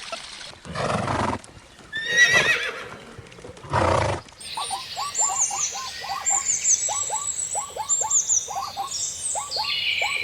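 A string of short animal calls cut together. Three brief bursts come in the first four seconds, one of them a wavering pitched call. Then comes a long run of quick, repeated downward chirps, with higher whistling calls above them.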